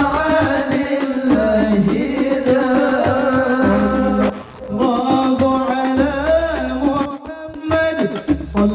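Middle Eastern-style devotional nasheed music: a wavering, ornamented melodic line, sung or played, over a repeating low drum beat.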